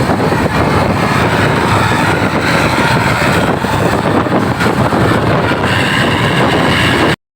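Loud, steady roadside vehicle noise, engine and road rumble, with faint horn-like tones now and then; it cuts off abruptly just before the end.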